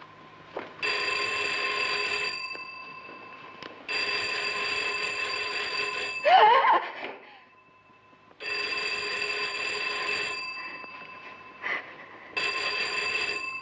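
Old electric telephone bell ringing, four rings of about two seconds each with pauses between. A short, loud, wavering cry sounds about six seconds in, between the second and third rings.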